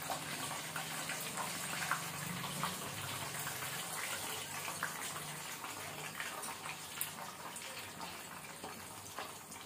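Chicken pieces deep-frying in hot oil in a karahi, a steady sizzle, with a few light clicks of metal tongs and a slotted spatula against the pan.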